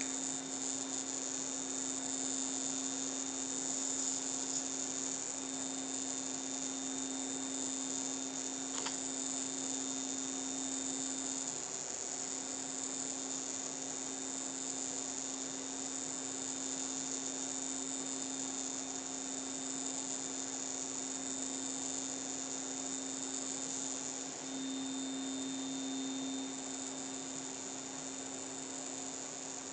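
A steady electrical hum with a high-pitched whine, unchanging throughout, with one faint click about nine seconds in.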